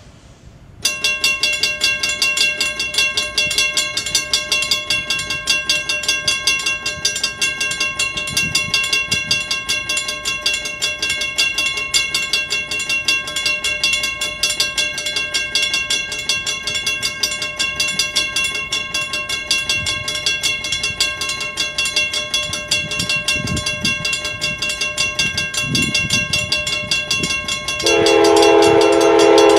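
Two Western-Cullen-Hayes mechanical crossing bells start ringing about a second in, hammered rapidly and continuously, one of them striking fast, as the crossing activates. Near the end a locomotive horn sounds over the bells.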